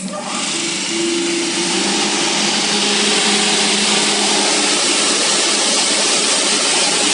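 Beaver 623 four-sided moulder running with its spindles spinning: a loud, steady whir that starts abruptly and builds slightly over the first second.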